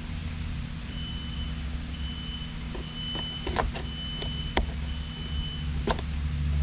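Steady low machine hum, with a thin high tone that starts and stops several times and a few sharp clicks near the middle.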